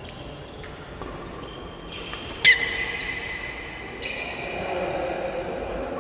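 Badminton rally in a large hall: rackets striking the shuttlecock in short knocks, with one loud, sharp hit about two and a half seconds in that rings on briefly in the hall.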